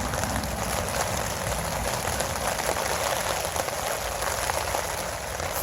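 Steady rain pattering, with a low rumble of wind on the microphone.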